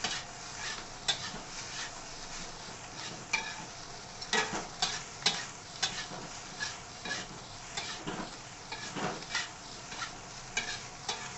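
Metal spatula stirring and scraping fried rice around a hot wok at a fast pace, with steady sizzling and irregular clinks and scrapes of metal on the wok.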